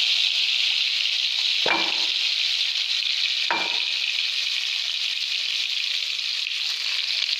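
Scored whole brinjal (eggplant) frying in hot oil in a wok over a low flame, giving a steady sizzle. Two brief falling chirps come about two seconds apart.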